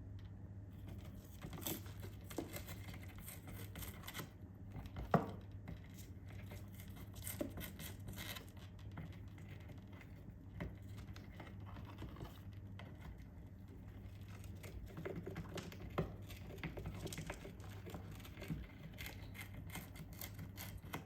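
An Alexandrine parakeet chewing and tearing a samosa box with its beak: irregular crackling and tearing, with a sharper snap about five seconds in, over a steady low hum.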